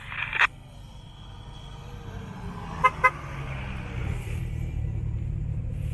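Engines of off-road 4x4s approaching along a dirt track, growing steadily louder, with two quick car-horn toots just before three seconds in.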